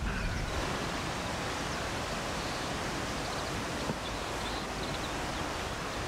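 Steady outdoor wind noise: an even rushing hiss with a low rumble.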